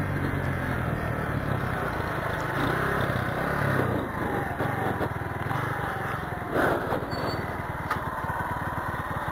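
Honda Fan 125 motorcycle's single-cylinder four-stroke engine running at low speed as the bike slows and pulls in to stop, its steady note weakening about four seconds in, over road noise from the wet street.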